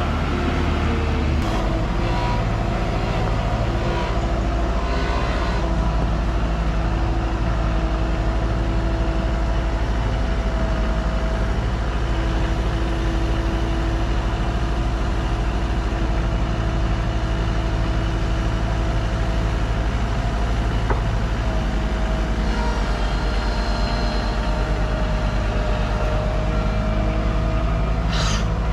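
A diesel engine running steadily, its speed stepping up and down a few times as it works. A short hiss near the end.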